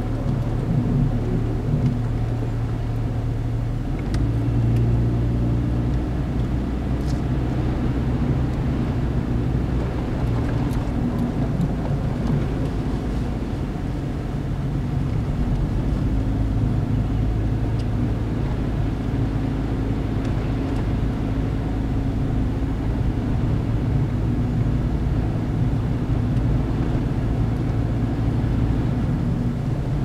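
Steady low drone of a car's engine and tyres heard from inside the cabin while driving on a snowy road.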